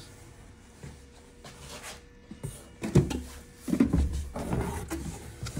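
Cardboard boxes being handled and shifted: quiet at first, then a few scrapes and knocks from about three seconds in.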